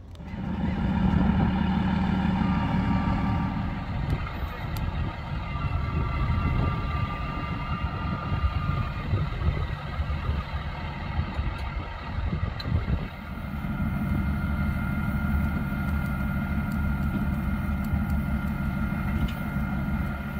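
Fire truck engine running at raised speed to power the aerial ladder's hydraulics while the ladder is raised, with a steady whine over the engine note. It comes up suddenly at the start and eases briefly a little after the middle before settling again.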